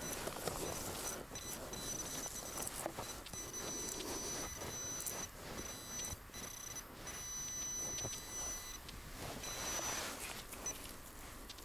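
A metal detector's high electronic signal tone sounding on and off, broken by short gaps, over scuffing noises.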